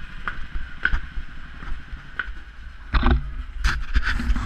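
A small camera being handled: scattered clicks, then louder knocks and rubbing against the microphone from about three seconds in as a hand grips it, over a steady low rumble.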